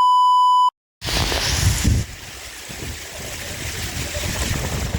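A loud electronic beep, one steady high tone lasting under a second, that cuts off suddenly. After a brief silence, wind rumbles and buffets on the microphone.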